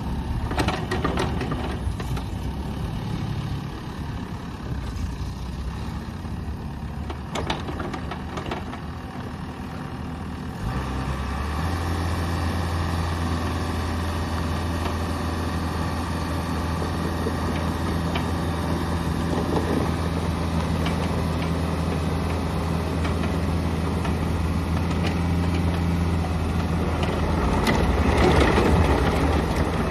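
Bobcat 435 mini excavator's Kubota V2403 diesel engine running; about ten seconds in it steps up to a steady, higher engine speed, and it grows louder near the end.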